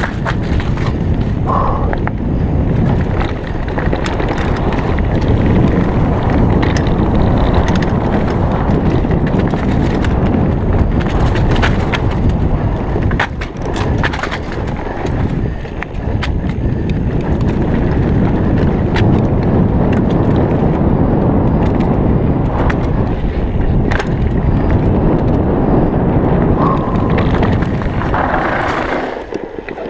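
Santa Cruz V10 downhill mountain bike descending a dirt trail covered in dry leaves: a continuous heavy rumble of tyres on the ground, broken by frequent sharp clicks and knocks as the bike hits bumps.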